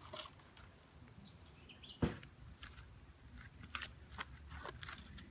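A single sharp shot from a BB gun about two seconds in, with faint rustling and small clicks of leaves and twigs around it.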